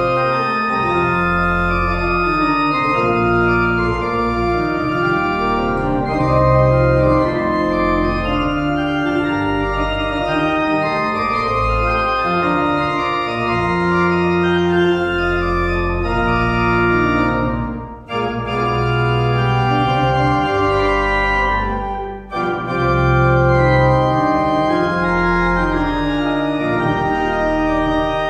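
Pipe organ playing sustained full chords over a deep pedal bass. The sound breaks off briefly twice, about two thirds of the way through.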